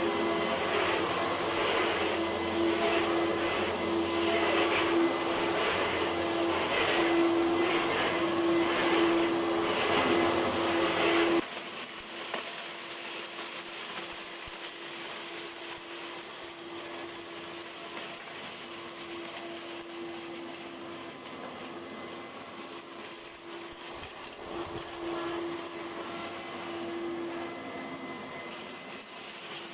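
1998 Electrolux Power System Z1740 upright vacuum cleaner running with a steady motor whine, pulsing about one and a half times a second as it is worked. About eleven seconds in, the sound suddenly drops quieter and thinner and runs on steadily.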